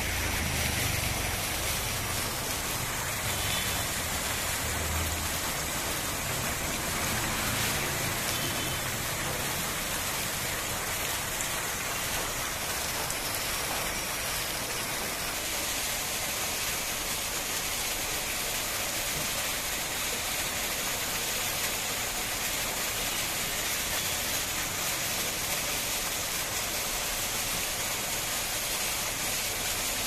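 Steady rushing and splashing of rainwater runoff cascading down a rock wall onto the roadside as a small waterfall, with a low rumble underneath in the first few seconds.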